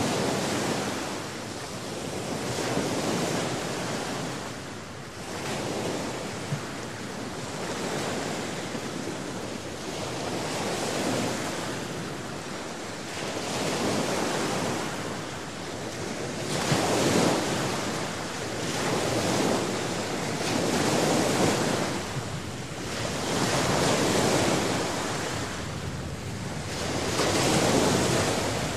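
Sea surf: waves breaking and washing in, swelling and falling back every three to four seconds.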